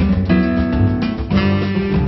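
Background music led by a strummed acoustic guitar, with a new chord struck about a second and a quarter in.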